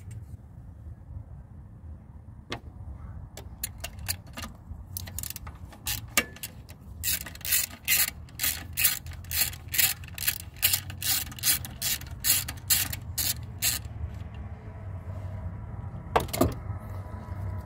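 Socket ratchet clicking as it backs out the 13 mm mounting bolts of an EGR valve. The clicks are scattered at first, then run steadily at about three a second for several seconds, with one more short burst near the end.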